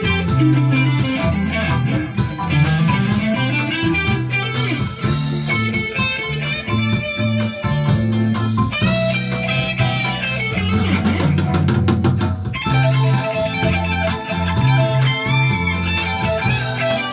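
Instrumental rock music: a Les Paul-style electric guitar plays a fast lead line with quick runs and note bends over a moving bass line.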